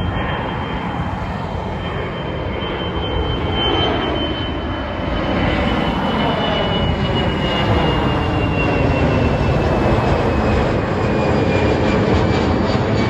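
Jet airliner climbing out just after takeoff: steady engine noise with a thin high whine that slides slowly down in pitch, growing a little louder about halfway through.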